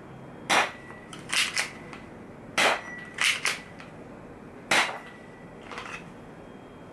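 Q1 Glock 18C replica spring airsoft pistol fired three times. Each sharp single shot is followed by a quick double clack as the slide is racked to cock the spring for the next shot.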